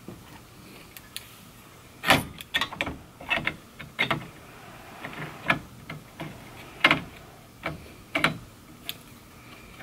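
Irregular clicks and knocks of metal 3D printer parts (aluminium frame, motor bracket and lead screw) being handled and fitted together by hand, starting about two seconds in, with two sharper knocks among them.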